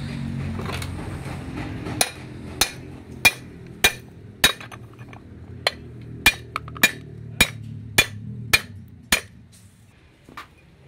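Sharp metallic taps at a steady pace, about one every 0.6 s, each ringing briefly, a dozen in all, stopping about a second before the end.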